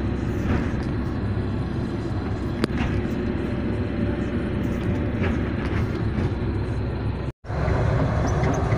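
Excavator's diesel engine running steadily, heard from inside the operator's cab, with one short click about a third of the way through. The sound drops out for an instant near the end and comes back a little louder.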